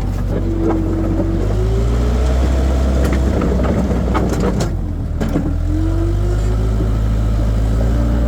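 Skid steer loader running under load: a steady engine drone with a hydraulic whine that rises and falls as the controls are worked, and several sharp clanks from the machine.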